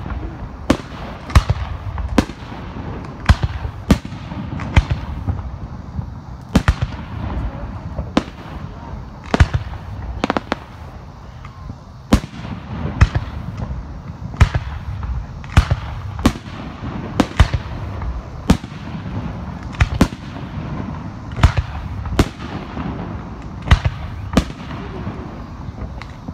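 Aerial firework shells bursting in quick succession, sharp booms about one a second at uneven intervals, with a low rumble between them.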